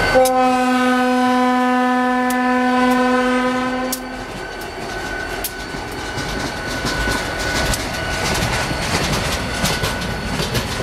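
Norfolk Southern EMD GP40-2 locomotive's horn sounding one long blast of about four seconds. Then the freight train rolls past, its wheels clacking over the rail joints.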